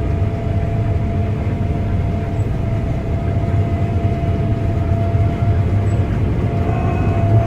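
Combine harvester running steadily during wheat harvest: a constant low drone with a steady whine above it.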